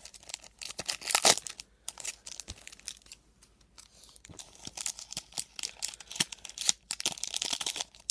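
Foil wrapper of a Topps football card pack crinkling and tearing open in irregular rustling bursts, loudest about a second in and busy again through the last few seconds.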